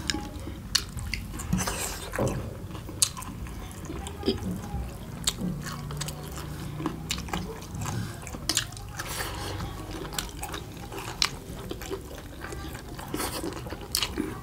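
Close-up eating sounds of people eating steamed momos and salad with their fingers: wet chewing and lip smacks, with many scattered sharp clicks and smacks.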